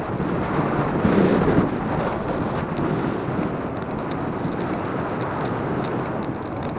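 Wind buffeting an action camera's microphone during a bicycle ride, a steady rumbling rush that swells about a second in, with small rattling clicks throughout.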